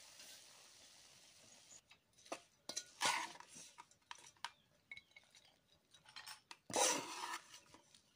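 A metal spoon scrapes and clinks against a metal sufuria as fried omena is scooped out of the pot. There are scattered clicks, and two louder scrapes, about three seconds in and again near seven seconds.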